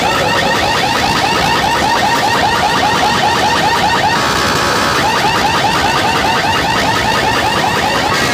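An electronic siren effect of rapidly repeating rising chirps, several a second, played loud through a DJ competition sound system over a dense noisy background. The chirps break off for about a second midway, then resume.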